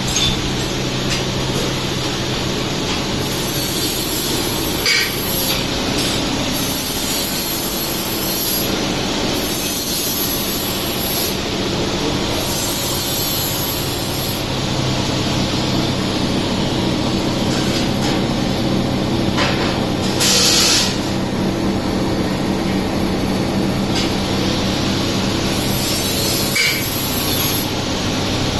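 Amada Quattro 1 kW CO2 laser cutting machine running: a steady hum under a high hiss that comes and goes every second or two, with a short burst of noise about two-thirds of the way through.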